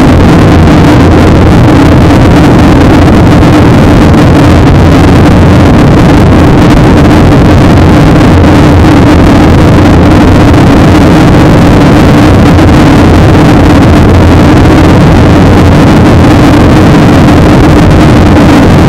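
Loud, steady cabin noise of a Boeing 737-800 in flight: the roar of its CFM56 turbofan engines and rushing air, heard from a window seat, with a steady low hum under it.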